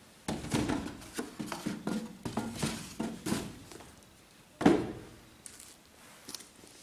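Handling noise of a cardboard shoe box and a sneaker: a quick series of rustles and light knocks, then one loud thump about two-thirds through as the sneaker is set down on the box, and a couple of small taps near the end.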